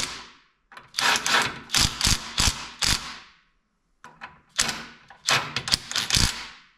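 Impact wrench hammering a nut tight in two bursts of a couple of seconds each, with a short pause between.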